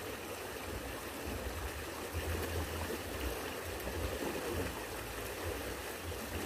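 Steady rush of flowing river water, with a low rumble coming and going underneath.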